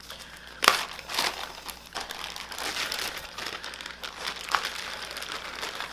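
Plastic bag crinkling and rustling as a marinated whole chicken is handled and taken out of it, with a sharp click just over half a second in.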